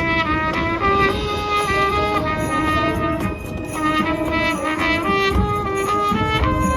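High school marching band playing, brass instruments with trumpets carrying a melody of held notes over percussion.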